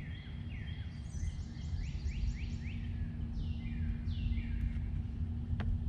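A songbird singing: a quick run of repeated down-slurred whistled notes starting about a second in, then a few longer notes near the middle, over a steady low hum and rumble.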